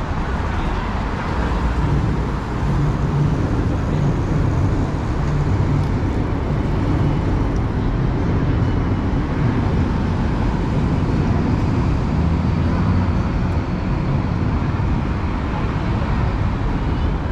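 Steady road traffic on a busy city street, with car engines running and tyre noise forming a continuous low rumble.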